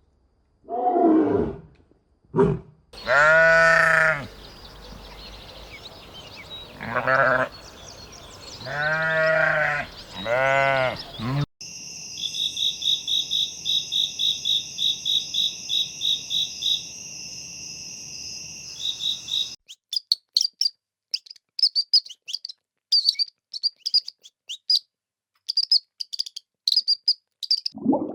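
A run of different animal calls, one after another. It starts with two short falling calls, then several long, wavering low-pitched calls, then a steady high pulsing trill, and ends with quick, repeated high chirps.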